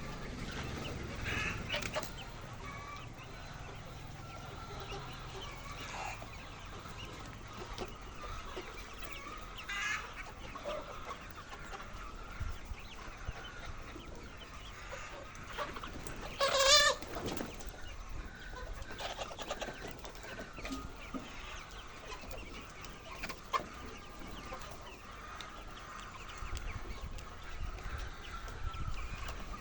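A flock of laying hens clucking and calling continuously, with one loud call rising above the rest about halfway through.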